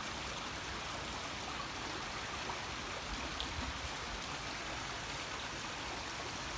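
Shallow stream water flowing steadily over rocks and debris, an even rushing trickle.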